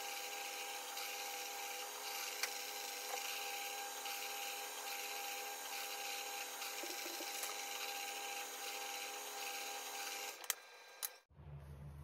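Bench drill press running steadily, its bit boring holes through a green MDF board. It stops about ten and a half seconds in.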